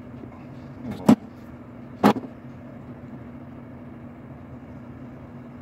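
Two sharp knocks about a second apart, over a steady low hum, from hands handling wires and tools on the go-kart's metal frame.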